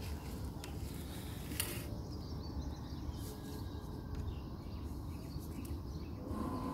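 Steady low outdoor background noise, with one sharp tap about a second and a half in.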